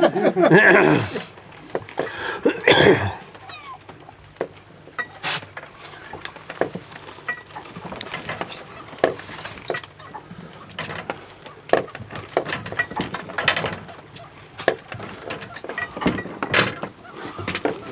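A few brief voices in the first three seconds, then scattered, irregular clicks and knocks while a fish is reeled in on a rod.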